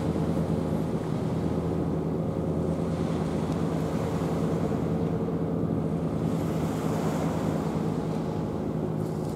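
A steady low engine drone with several held tones, over a wash of wind and surf.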